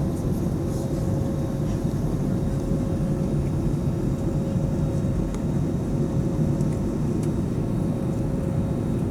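Airbus A320-232's IAE V2500 turbofan engines roaring steadily at takeoff or climb power, a deep even rumble with a faint steady hum running through it.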